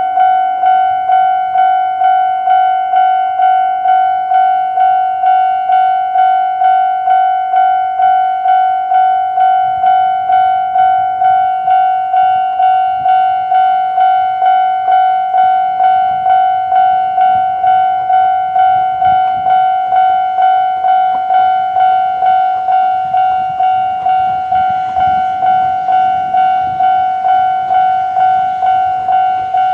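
Japanese level-crossing warning bell of the older standard electronic type, ringing steadily at about two strikes a second. From about ten seconds in, the rumble of an approaching Kōnan Railway 7000-series electric train grows beneath it and becomes plain near the end.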